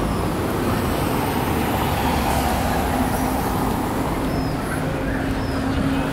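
City street traffic: steady road and tyre noise from passing cars.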